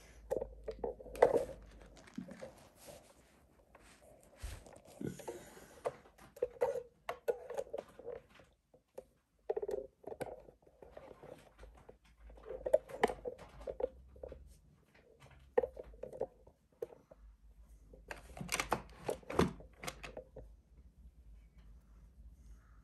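Irregular handling noises on a table: scattered knocks, clicks and rustles, heaviest in short clusters about a second in, around the middle and near the end.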